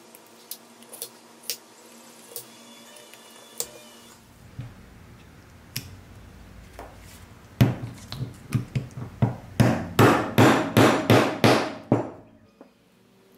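Small hammer tapping steel axle rods into a toy truck's stacked wheels: a few light metal clicks as the parts are handled, then a quick run of about a dozen sharp taps over some four seconds that stops abruptly.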